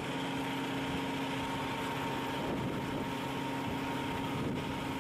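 Excavator diesel engine idling steadily while it holds a large pipe on its sling, with an even hum at a constant pitch.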